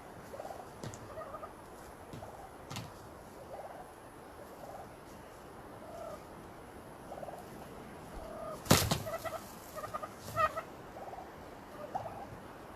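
Merriam's wild turkeys calling close by: a run of short, soft calls repeating every half second or so, then a loud sudden burst about nine seconds in, followed by a few sharper calls.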